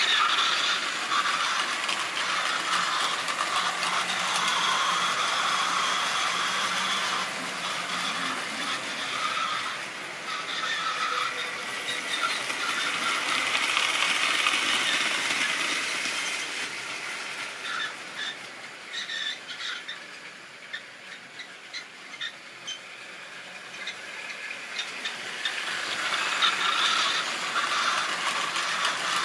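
Model trains running on sectional track: a steady whirr and squeal of small metal wheels and a locomotive's electric motor as a long train of vans and hopper wagons passes. The sound fades about two-thirds through, leaving small regular clicks of wheels over the rail joints, then builds again near the end as the train comes round once more.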